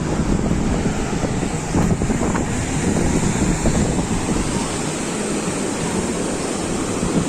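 Sea surf breaking and washing on the beach, with wind buffeting the microphone.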